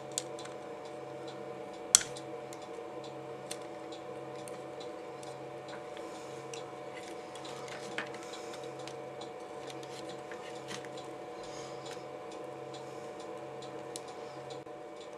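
Small tool clicking and scraping against a circuit board as a desoldered DIP microchip is pried out of its holes, with one sharp click about two seconds in and a fainter one about eight seconds in. A steady hum runs underneath.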